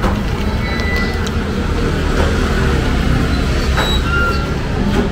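Street traffic: a heavy vehicle's engine giving a steady low rumble close by, with a few brief high squeaks about a second in and again near the end.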